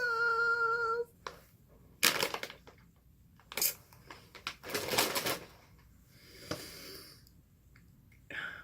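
A held, slightly wavering vocal note for about a second, then a plastic snack bag of pretzels handled, crinkling in a few short crackles.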